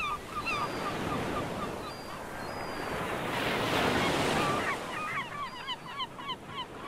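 Surf washing onto the shore, swelling about halfway through, with a flock of geese honking repeatedly over it; the honks come thickest near the start and again in the last two seconds.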